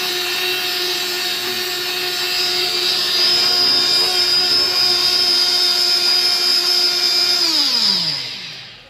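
Electric blender motor running at a steady high speed, blending a banana milkshake. Near the end it is switched off, and its pitch falls as the motor spins down to a stop.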